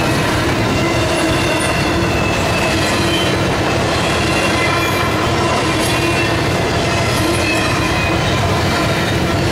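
Freight cars of a CSX intermodal train rolling steadily through a grade crossing: a continuous loud rumble of steel wheels on the rails, with faint steady squealing tones over it.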